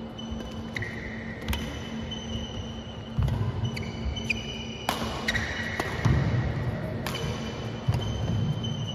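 Badminton rally on an indoor court: sharp racket-on-shuttlecock hits, shoes squeaking on the floor and footfalls thudding, getting busier from about three seconds in, over a steady high-pitched tone.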